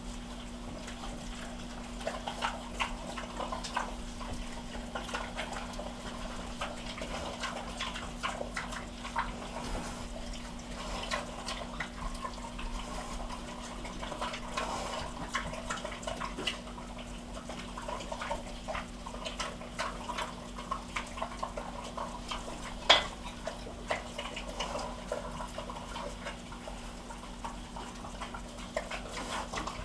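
A pig eating an omelette from a metal bowl: wet, irregular chewing and smacking with many small clicks, and one sharper knock about 23 seconds in, over a steady low hum.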